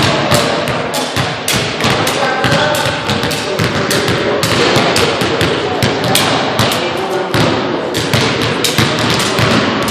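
Several basketballs being dribbled on a hardwood gym floor: many overlapping thuds, several a second, echoing in the large hall, with voices in the background.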